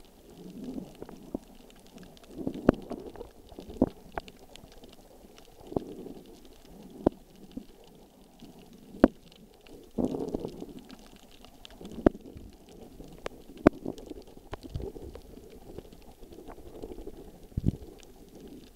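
Muffled underwater sound picked up by a camera held below the surface: a low swishing rumble of moving water that swells and fades every second or two, with irregular sharp clicks and knocks about once a second.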